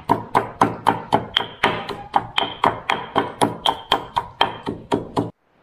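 Mortar and pestle pounding turmeric and soaked rice into a paste: a steady run of sharp strikes, about four a second, each with a short ring, stopping abruptly near the end.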